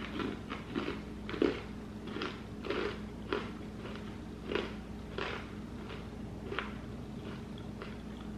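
Chewing of hard, crunchy sourdough pretzel pieces (Snyder's of Hanover Nashville Hot), with about a dozen irregular crunches that grow weaker later on.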